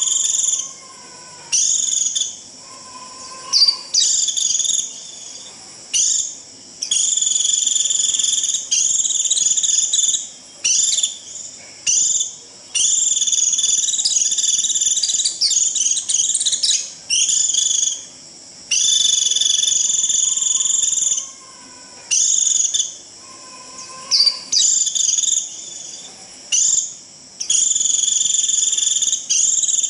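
White-eye (vành khuyên) giving repeated shrill, buzzy 'rít' calls in bursts of a second or two with short breaks, the flock-calling call used to draw other white-eyes in.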